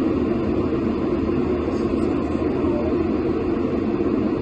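Steady cabin noise of a commercial airliner in flight: jet engine and airflow noise heard from inside the passenger cabin, even and unchanging.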